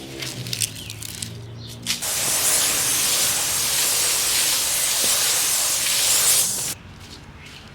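Water spraying onto potting soil to moisten it before planting: a loud, steady hiss that starts suddenly about two seconds in and cuts off abruptly near the end.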